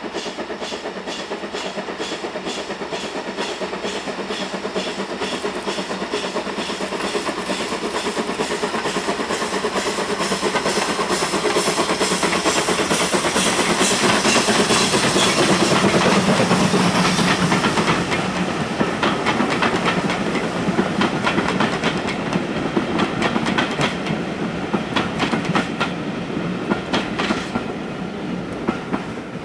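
LMS Ivatt Class 2 2-6-0 steam locomotive passing with its train: a regular chuff of about two beats a second grows louder to a peak about halfway through, then the carriages' wheels clatter over the rail joints as the sound fades.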